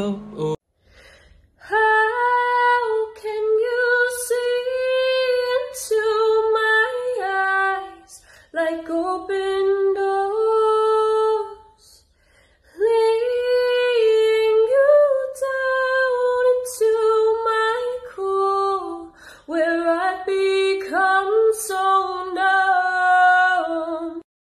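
A woman singing solo without accompaniment, in long held phrases with short breaks between them.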